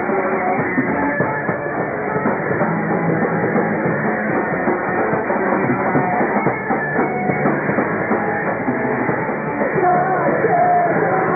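Live punk rock band playing loudly, with electric guitars and drums in a continuous wall of sound.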